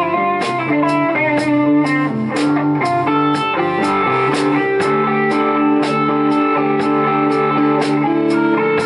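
Live rock band playing an instrumental passage: electric guitars play melodic lines over electric bass, with the drummer keeping a steady cymbal tick about two or three times a second.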